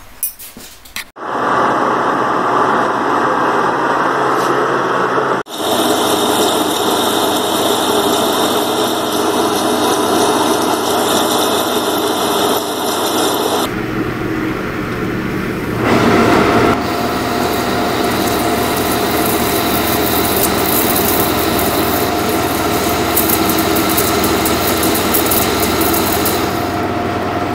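1943 Sidney 16x54 engine lathe running and taking heavy facing cuts across a large metal disc, the last of them a 9/16-inch-wide cut fed by hand. It comes as several clips joined back to back, so the loud, steady machining noise changes abruptly three or four times.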